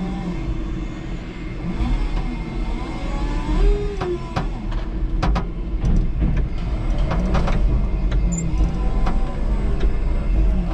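Electric forklift at work: motor and hydraulic whines that glide up and down in pitch over a low rumble, with several sharp clunks and rattles from the mast and forks handling the load.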